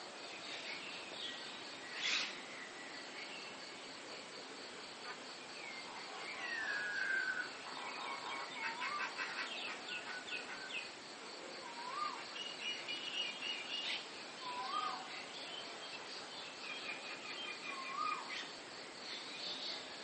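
Several birds singing and calling from the trees: a fast chatter, a falling whistle, and one bird repeating a short rising-and-falling whistle about every three seconds. A steady high insect trill runs underneath.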